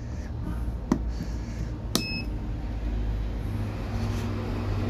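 A mains plug is pushed into the 220 V AC socket of a DIY solar generator's power inverter, with a click about a second in. A sharper click and a very short electronic beep follow about a second later as the connected plug-in electricity meter powers up, over a steady low hum.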